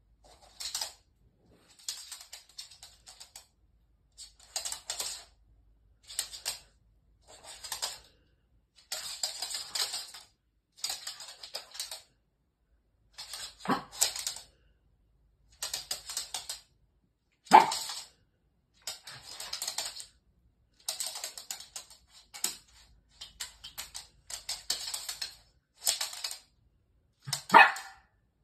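A small dog's claws clattering on a laminate floor in repeated quick bursts, about one a second, as it bounces and scrabbles in play. Three louder sharp sounds stand out, about a third of the way in, halfway and near the end.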